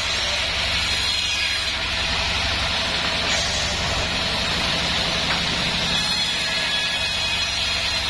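Band sawmill running steadily, a low pulsing drone from its drive under the hiss of the band blade ripping lengthwise through a wadang log as a board is sawn off.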